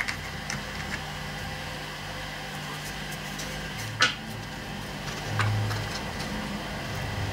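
A few light clicks and one sharper tap about four seconds in as an aluminium bracket is screwed onto a carbon fibre sheet with a hand tool, over a steady low hum.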